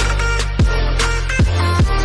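Intro music with a heavy, steady bass line, and three deep bass hits that each slide quickly down in pitch.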